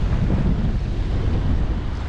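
Rough surf washing and breaking around a camera held at water level, with wind buffeting the microphone as a steady low rumble.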